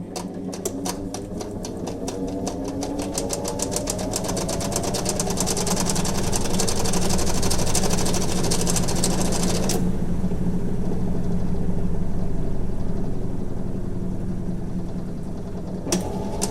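Hitachi NW-6AZ washing machine's belt-driven, non-inverter motor running an empty spin cycle: a steady low motor hum while the drum spins up with a rising whine and a rapid ticking that speeds up, then the ticking cuts off suddenly about ten seconds in and the motor runs on. Near the end a sharp click and another rise in pitch as it spins up again. The machine is well worn and makes abnormal noises.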